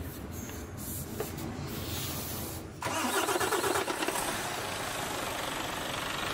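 A truck engine starting: a low rumble, then about three seconds in a sudden, louder start with a fast rattle for about a second, settling into steady running.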